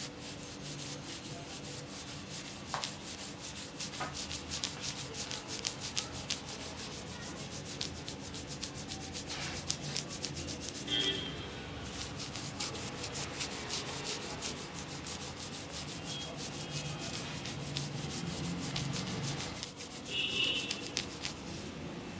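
A multi-pronged handheld scalp massager and fingers rubbing through damp hair on a scalp, making a steady, dense crackling rustle.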